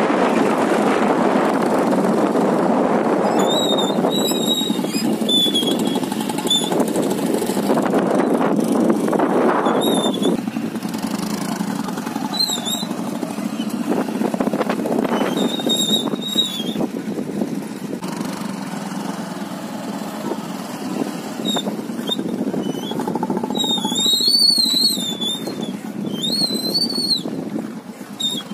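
Steady rushing outdoor noise, with a bird calling over it in short, repeated high chirps that grow more frequent and louder near the end.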